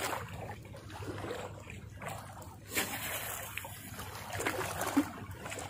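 Small sea waves lapping and splashing at the shoreline, with a brief louder rush of noise about halfway through.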